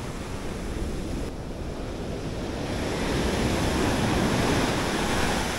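Ocean surf washing up the beach with wind buffeting the microphone; the wash swells louder in the second half, then eases.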